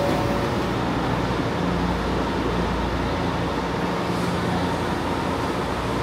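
São Paulo Metro Line 2 train running through the station with a steady, even rumble and hiss, and a faint hum over it.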